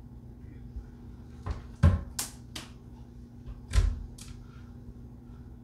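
Clear acrylic quilting ruler being shifted and set down on fabric over a wooden tabletop: a handful of sharp plastic clacks and knocks, the two loudest with a dull thud, about two seconds apart.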